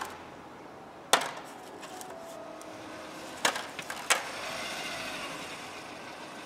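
Three sharp clicks, one about a second in and two close together around the middle, with light rustling between: small injector sealing washers and their case being handled while washers are picked out by thickness.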